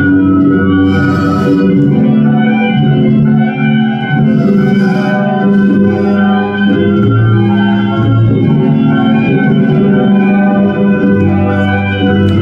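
Live improvised electronic music played on tabletop electronics: dense, loud, sustained organ-like drones with several tones layered, and short hissing noise bursts about one second in and again around four and a half seconds.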